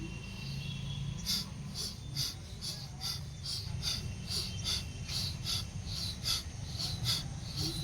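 Bhastrika bellows breathing: quick, forceful breaths through the nose in an even rhythm of about two and a half strokes a second, starting about a second in.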